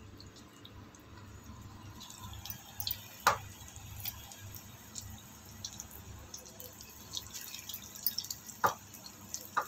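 Spinach pakora batter balls deep-frying in hot oil in a kadhai: a soft crackling sizzle with many small pops that picks up about two seconds in, broken by two sharp clicks.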